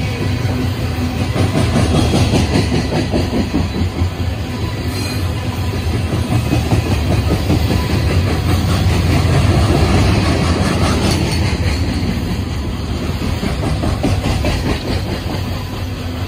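Loaded CSX coal train's hopper cars rolling past at close range: a loud, steady rumble with the clickety-clack of wheels over the rail joints.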